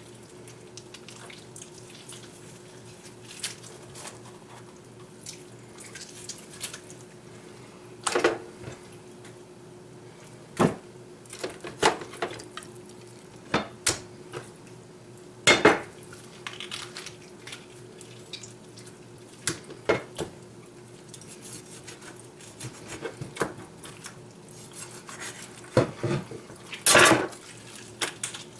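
French billhook chopping through a raw chicken carcass onto a cutting board: a dozen or so sharp, irregular chops and knocks a second to several seconds apart, the loudest about halfway through and near the end, over a faint steady hum.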